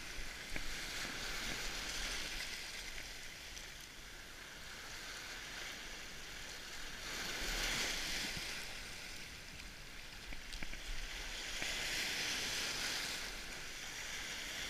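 Small waves washing in over shore rocks, a steady hiss of foaming surf that swells louder twice, about seven and twelve seconds in.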